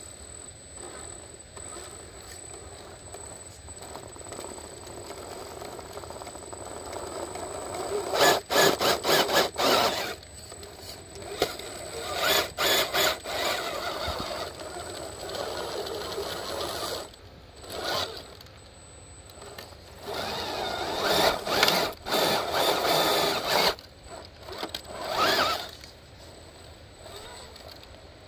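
Scale RC crawler truck's electric motor and geared drivetrain whirring in repeated bursts of one to a few seconds as it is driven and stopped over the trail.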